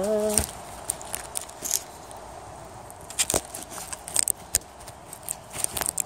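Handling noise from a camera being propped among dry sticks and leaves on the ground: scattered clicks, crackles and rustles, with a sharper knock a little past halfway and a cluster of clicks near the end.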